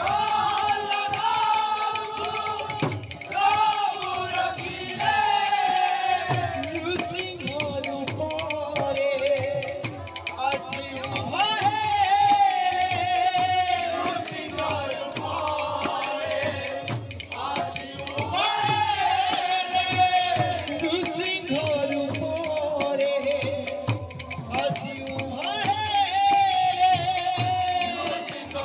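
Odia kirtan music: a high melody with sliding pitch and vibrato, sung over continuous jingling of hand percussion and irregular drum strokes.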